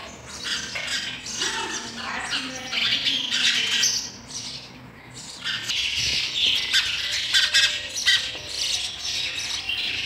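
House sparrows calling in a dense run of harsh, rapid chirps, with a short lull about halfway through before the chirping picks up again.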